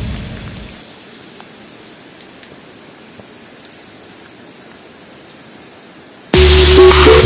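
Background music fading out, then a steady hiss of light rain with faint drop ticks. Loud electronic music with a beat cuts in suddenly near the end.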